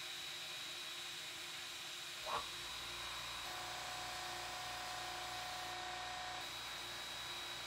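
Sandblast cabinet's blast gun hissing steadily as abrasive grit is blasted onto a rusty, pitted axe head to strip the rust. A brief rising squeak sounds about two seconds in, and a faint steady whistle runs for about three seconds in the middle.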